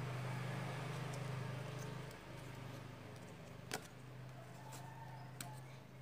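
A steady low mechanical hum like a motor running, with a sharp click a little past the middle and a few faint ticks near the end.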